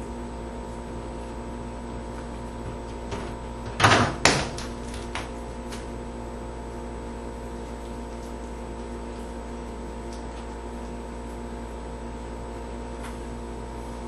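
Refrigerator door being bumped and worked: two loud knocks close together about four seconds in, with a few lighter clicks around them, over a steady low hum.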